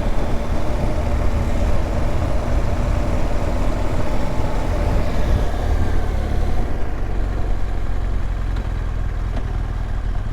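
BMW R1200GSA's boxer-twin engine running steadily while riding, with a low rumble under a rush of wind and road noise. The higher hiss drops away about two-thirds of the way through, while the engine's rumble carries on.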